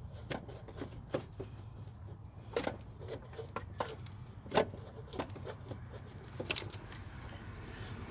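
Irregular light clicks and clinks of hand work on hose fittings and plastic clips, over a steady low hum; the sharpest click comes about four and a half seconds in.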